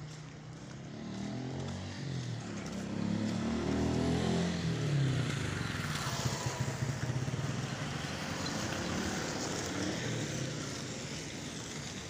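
A motor vehicle's engine passing close on a street. Its pitch climbs and grows louder to a peak about four to five seconds in, then drops away.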